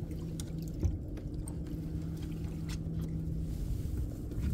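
Water lapping and dripping at the side of a small fishing boat, over a steady low hum that fades out about three and a half seconds in, with a few light knocks.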